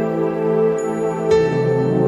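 New-age background music: sustained soft chords, with a new chord coming in about a second and a half in.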